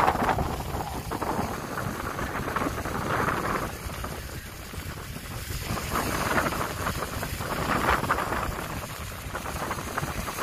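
Gusty wind rushing over a phone's microphone, a noisy rush that swells and fades every second or two.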